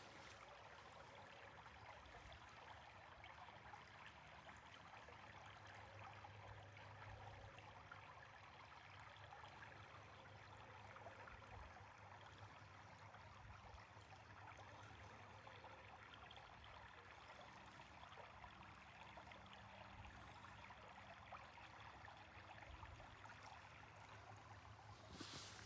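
Near silence: faint, steady forest ambience, a soft even hiss with no distinct events.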